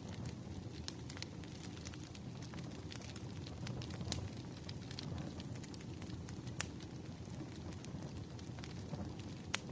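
Wood fire burning: a steady low rumble with a continual scatter of sharp crackles and pops, a few louder pops standing out, one near the end.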